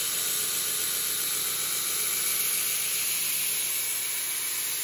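Belt grinder with a coarse 24-grit belt grinding the bevel of a steel knife blade held in a jig: a steady high hiss of steel on abrasive as the main stock is removed from the bevel.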